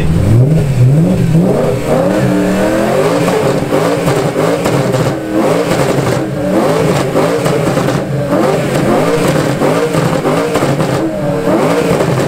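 BMW E90 M3's 4.0-litre V8 revved repeatedly while standing still. The exhaust pitch climbs and drops in quick blips, one after another.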